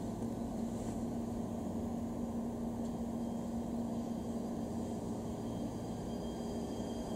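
JR Shikoku 7200 series electric train starting to pull away from a station platform: a steady low hum, with faint high steady whine tones joining near the end as it gets under way.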